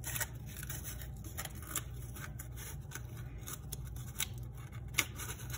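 Corrugated cardboard pieces rubbing and scraping together as one slotted piece is pushed into the slot of another, in irregular soft scratches and clicks, with a sharper snap about five seconds in.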